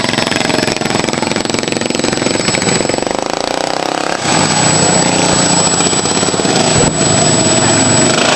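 Racing lawn mower engines running hard. One engine's pitch falls as it passes, then a louder engine takes over about four seconds in.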